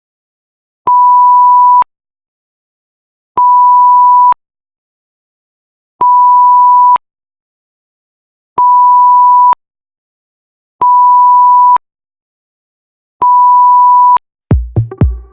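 Censor bleep sound effect: a pure, steady single-pitch beep about a second long, played six times with silent gaps of about a second and a half between them. Near the end, electronic music with low, heavy drum hits begins.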